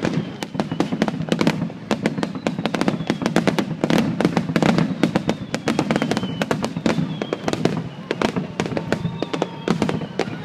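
Fireworks display going off in rapid, continuous succession: dense overlapping bangs and crackles over a steady low rumble, with a faint falling whistle now and then.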